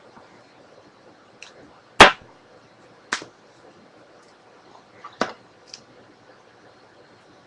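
Three sharp taps or knocks, the loudest about two seconds in, the others about a second and three seconds later, with a couple of faint clicks between: handling noise on a tabletop.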